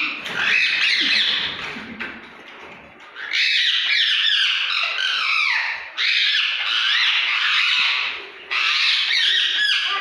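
Parrots squawking harshly during a fight, in long overlapping spells of screeching calls with brief pauses between them, the longest pause about two seconds in.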